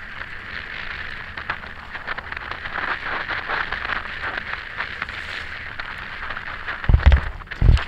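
Wind and trail noise on a mountain bike's action camera at speed down a dirt descent: a steady rush with many small rattles and clicks from the bike and the rough ground. Two heavy low thumps come near the end.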